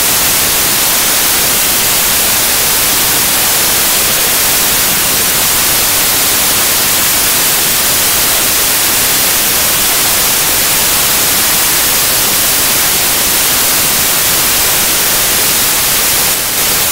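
Loud, steady hiss of white-noise static, a fault in the recording's audio track rather than any sound in the hall.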